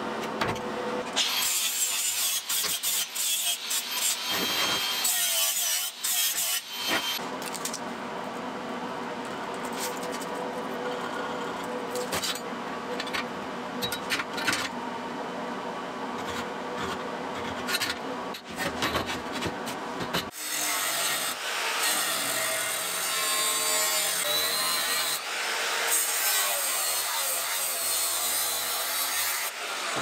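Continuous rasping and scraping as steel plate is worked by hand. The sound changes abruptly about a second in and again about two-thirds of the way through.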